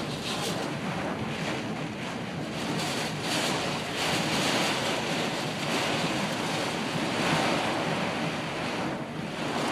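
Torrential rain and gusting wind beating on a car's windshield and body, heard from inside the cabin. It is a dense, steady rushing that swells with the gusts, strongest around three, four and a half, and seven seconds in.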